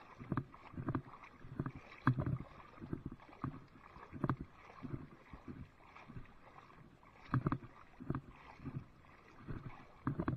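Water splashing and sloshing in repeated strokes, roughly two a second, as an arm works through the water at a small boat's side.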